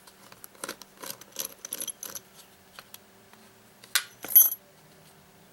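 Small metal lock parts and a hand tool clicking and clinking as the picked Yale lock is taken apart, with two sharper ringing metallic clinks about four seconds in.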